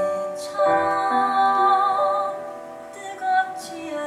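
A woman singing a slow musical-theatre ballad to instrumental accompaniment, holding a note with vibrato about a second in.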